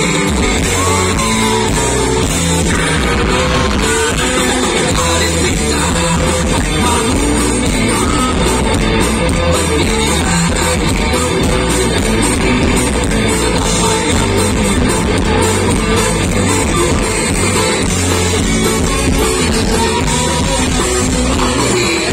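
A live rock band playing loudly through a PA system, with electric guitar, bass and drums under a singer's voice.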